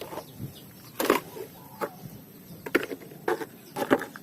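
Plastic toy vehicles clattering as they are handled and dropped into a container: about five short knocks spread over a few seconds.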